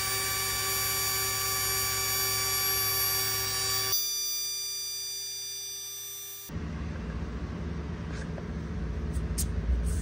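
Electric spindle motor on a cue-splicing jig running with a steady high whine of many tones, which thins out about four seconds in and fades away by about six and a half seconds. It is followed by a low hum with a few light clicks near the end.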